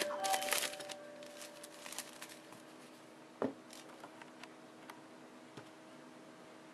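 Cellophane shrink-wrap crinkling as it is pulled off an iPhone 3GS box, loudest in the first second, followed by small scattered rustles and ticks. About three and a half seconds in there is a single knock as the box is set down on a wooden desk.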